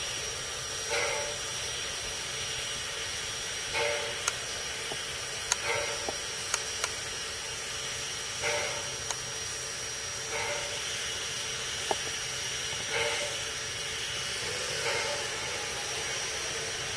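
Robert Dollar Co. No. 3 steam locomotive standing with a steady hiss of steam escaping near its wheels, broken by a short puff every two to three seconds and a few sharp clicks.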